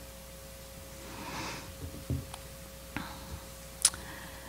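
Quiet room tone with a steady faint hum, a soft breath about a second in and a few small clicks, the sharpest near the end.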